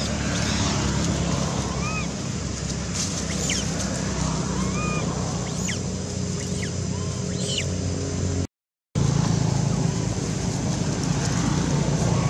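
Steady outdoor background rumble with a low hum, over which short arched chirping calls come every second or two, along with a few thin high whistles. The sound cuts out completely for about half a second some eight and a half seconds in.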